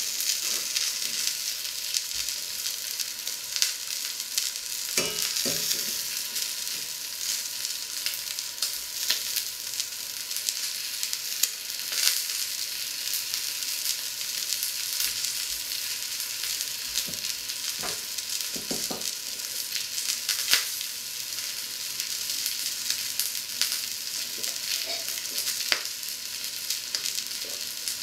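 A piece of meat frying in a pan under a mesh splatter screen: a steady sizzle with scattered pops and crackles, and a few soft low knocks.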